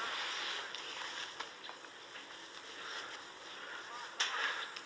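Steady background hiss with a few faint clicks, and a short rustle about four seconds in.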